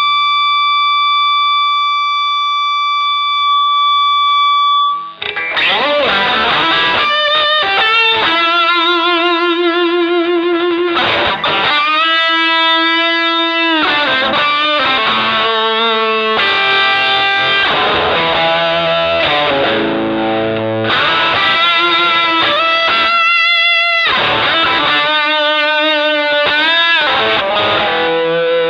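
Electric guitar played through an MXR Dynacomp compressor pedal. A single note is held and sustains evenly for about five seconds. Then come phrases of single notes with vibrato and string bends.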